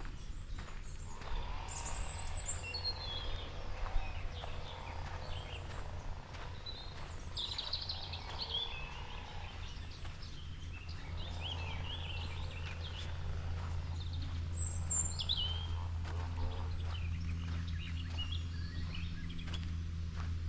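Woodland birds singing: scattered high chirps and short trills from several birds, over a steady low hum.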